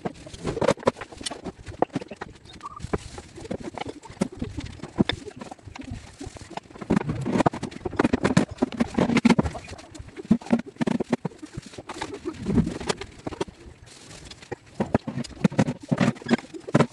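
Irregular wooden knocks and thumps from a plywood cabinet being handled, shifted and tipped over on a concrete floor.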